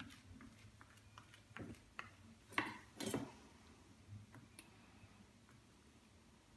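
Quiet kitchen handling: a silicone spatula spreading soft cheese on a tortilla, with faint ticks and a few short knocks and clinks as the spatula and a stainless steel bowl are handled on a wooden board, the loudest about two and a half and three seconds in.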